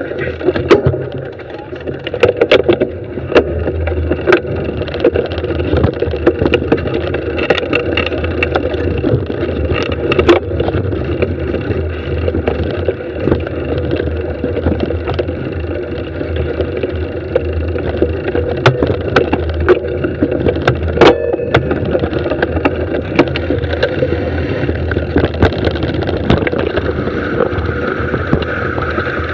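Mountain bike descending a dirt singletrack at speed: a steady rushing noise with frequent sharp clicks and rattles as the bike runs over the rough trail.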